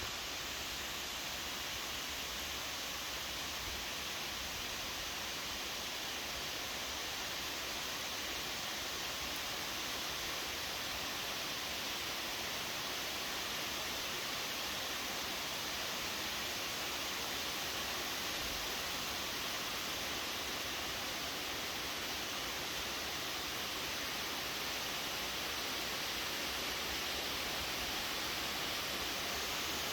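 Steady rain falling, heard as an even, unbroken hiss.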